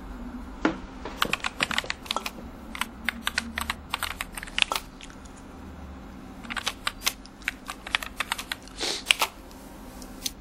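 Typing on a keyboard: quick, irregular key clicks in two runs with a pause of about two seconds between them, and a short hiss near the end.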